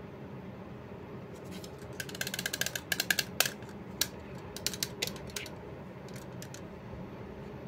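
Plastic shell of an Attack Shark X6 gaming mouse creaking and clicking as it is squeezed and handled. A quick run of crackling clicks comes about two seconds in, then scattered single clicks.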